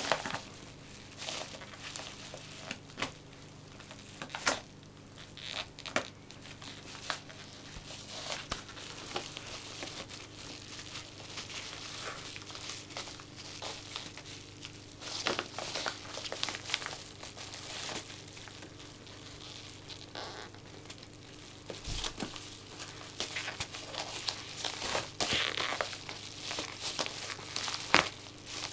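A dog pawing and biting at a yellow padded paper envelope, the paper crinkling and rustling in irregular bursts with sharp tearing sounds as it rips it open. The busiest stretches come about halfway through and near the end.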